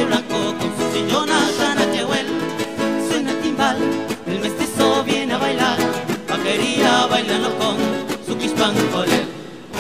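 Music soundtrack: a Latin American song with plucked guitar and a singing voice, dipping in level near the end.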